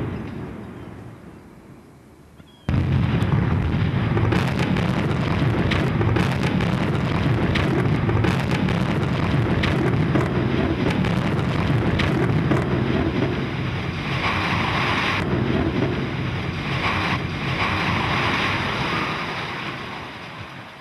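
A building collapsing in a demolition: about three seconds in, a sudden loud rumble of falling concrete and masonry, with sharp cracks of breaking debris, that goes on for many seconds and then fades.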